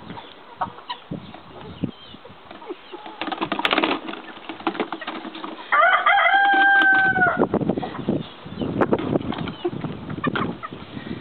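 White-crested black Polish cocks pecking and knocking at a plastic bucket, with wing-flapping and runs of sharp taps and scuffles. About six seconds in, one cock crows once, a held call of about a second and a half and the loudest sound.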